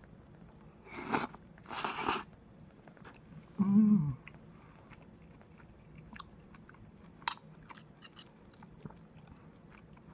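A person eating a spoonful of curry: two short breathy noises, a brief low hummed "mmm" that falls in pitch about four seconds in, then small mouth clicks of chewing.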